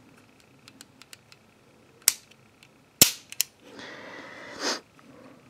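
Metal clicks and snaps of a Beretta Model 81-series .32 pistol being handled, its safety and action being worked. Light ticks come first, then a sharp click about two seconds in and a louder snap about three seconds in, followed by a short scrape that ends in a clack.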